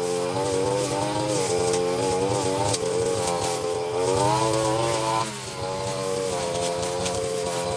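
Two-stroke brushcutter engine running, its pitch rising and falling. About five seconds in the pitch drops suddenly, then the engine runs on steadily.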